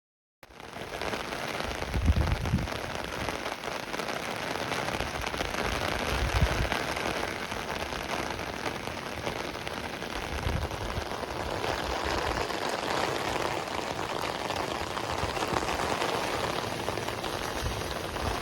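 Heavy rain falling steadily: a dense, even hiss, with a few low thumps every few seconds.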